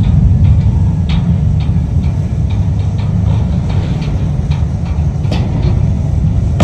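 Hitachi ZX1000K high-reach demolition excavator running with a loud, steady low rumble, with scattered sharp clicks and cracks throughout.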